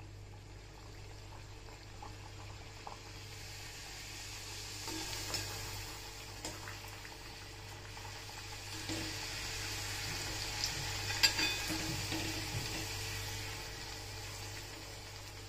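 Kadakani dough pieces deep-frying in hot oil, a steady sizzle that swells about five seconds in and is strongest around ten to twelve seconds in. A sharp tap near the middle is the loudest single sound.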